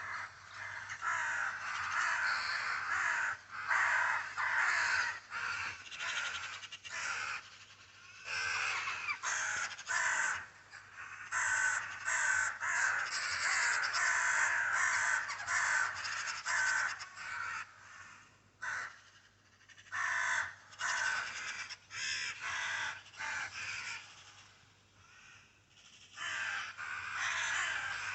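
Birds giving harsh, raspy calls over and over in bursts, with a couple of brief lulls.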